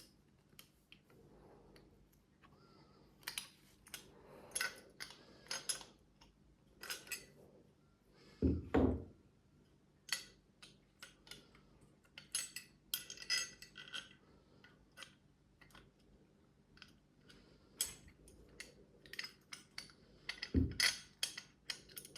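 Metal stunt-scooter parts being handled and fitted: irregular small clinks and taps of metal on metal, with a heavier knock about eight seconds in and another near the end.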